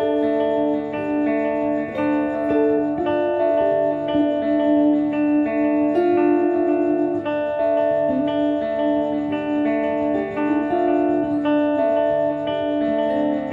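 Two guitars played together: picked notes and held chords, with the notes changing every second or so.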